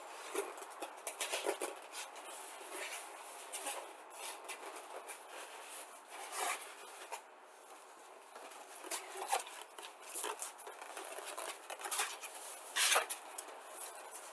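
Packing material, bubble wrap among it, crinkling and rustling in irregular bursts of short crackles as an air compressor is lifted out of its box.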